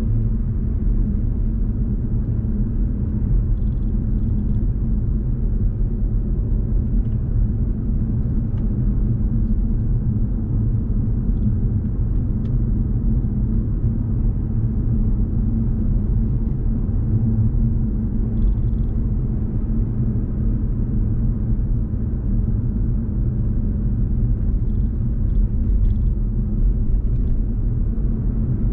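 Steady low rumble of a car driving along a road: engine and tyre noise at a constant level.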